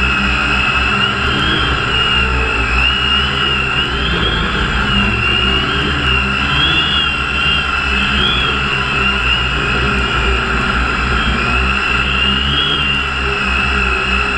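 Motors and propellers of a small radio-controlled aircraft carrying the camera, a steady whine whose pitch wavers up and down, as it comes down from above the rooftops to just over the ground.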